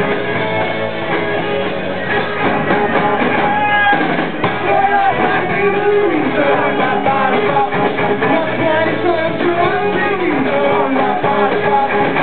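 Live rock band playing with electric guitars, and a lead vocal coming in about four and a half seconds in.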